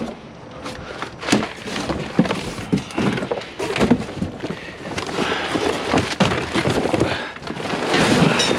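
Scrap being handled and thrown about in a dumpster: a string of irregular knocks and clatter with rustling in between.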